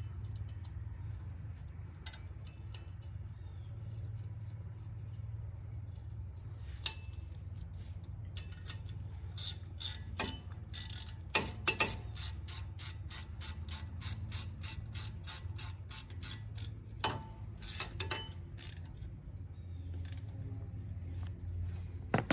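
Hand ratchet clicking as it turns a small bolt back in, a fast run of even clicks at about four a second in the middle, with scattered single clicks before and after.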